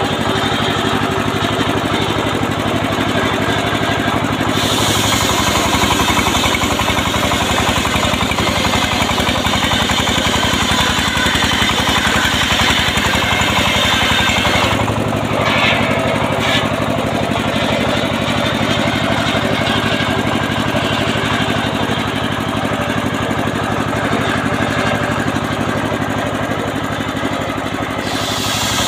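Engine-driven homemade circular sawbench ripping a teak log lengthwise: a steady, pulsing engine with the blade's cutting noise over it. The cutting noise grows about four seconds in, breaks off briefly around the middle, and drops away near the end.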